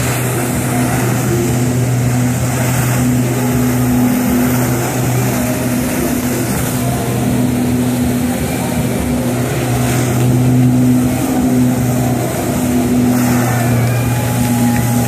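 Personal watercraft engine running steadily at high revs to drive a flyboard, with the rush of water jets spraying from the board's nozzles.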